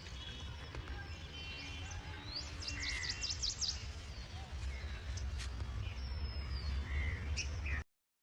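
Small birds chirping and calling, including a quick trill of about seven falling notes, over a steady low rumble. The sound cuts off abruptly near the end.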